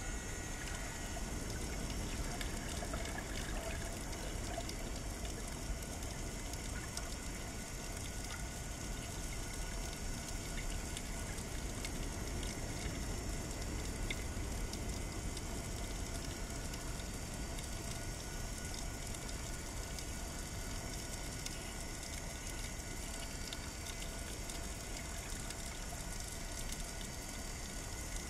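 Underwater ambience picked up by a camera in its housing: a steady rushing hiss of water with many faint scattered crackles.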